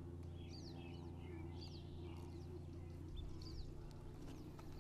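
Faint, scattered bird chirps over a steady low background hum.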